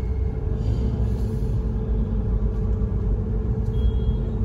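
Car engine and road rumble heard inside a moving car's cabin: a steady low rumble with a constant hum over it.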